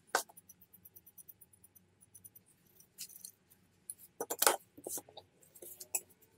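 Small steel parts of an adjustable wrench clicking and clinking as it is taken apart and the sliding jaw, worm screw and pin are handled and set down. A sharp click just after the start and a run of light ticks over the next two seconds, then several clusters of metallic clinks, loudest about four and a half seconds in.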